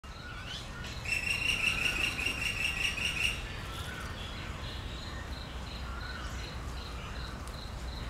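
A loud, rapid run of high chirps starts about a second in and lasts about two seconds. After it comes an insect's steady chirp, about three pulses a second, with scattered short bird calls.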